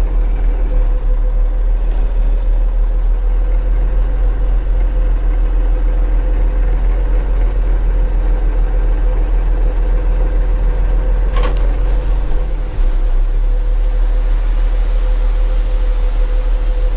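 Ford L9000 dump truck's diesel engine running steadily, with a thin steady hum over the rumble. A single sharp knock comes about eleven seconds in.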